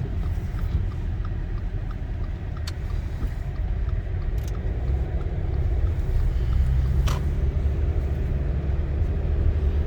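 Low, steady rumble of engine and tyre noise inside a Subaru Crosstrek's cabin, driving on a snow-covered road. For the first few seconds the turn signal ticks about three times a second, and a few brief clicks come later.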